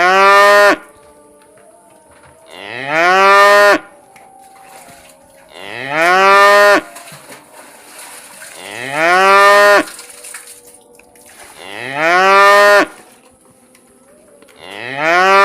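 A cow mooing over and over, one call about every three seconds. Each moo lasts about a second, rising in pitch, then holding before it stops abruptly.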